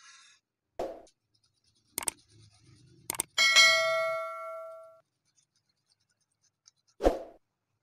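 Subscribe-button sound effect: a couple of mouse clicks followed by a bright bell ding that rings out and fades over about a second and a half. Short thuds come about a second in and again near the end.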